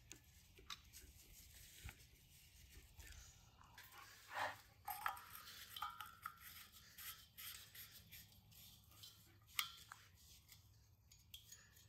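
Faint clicks and scraping of a propane hose coupling being threaded by hand onto a propane tank's brass valve, with a few sharper clicks about four and a half and about ten seconds in.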